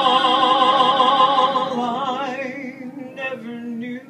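A man and a woman singing a duet's held final note together with vibrato over piano accompaniment; the note fades away about two seconds in, and only a few faint short sounds remain near the end.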